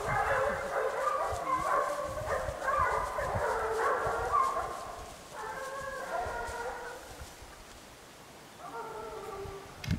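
Several hunting dogs baying on the scent of a wild boar, their overlapping cries thick at first, thinning past the middle, then a brief last burst near the end.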